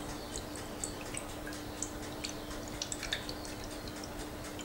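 Custard mix poured in a thin stream through a fine mesh sieve into a shallow ceramic ramekin: a faint liquid trickle with scattered small drips and ticks.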